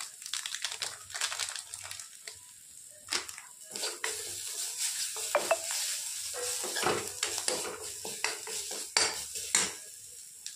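A steel spoon scraping and stirring spices and onion around a kadhai, with repeated clinks of metal on the pan, over a sizzle of masala frying in hot mustard oil.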